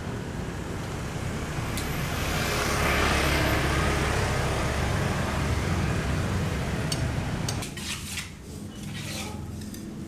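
A passing road vehicle: a broad rumble and rush that swells to its loudest about three seconds in, then fades. Near the end the noise drops away and a few light taps and clicks are heard.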